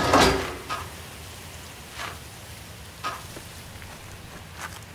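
Steady hiss of rain ambience with a few soft scattered drips, opening with a loud brief hit that rings with a pitch and fades within about half a second.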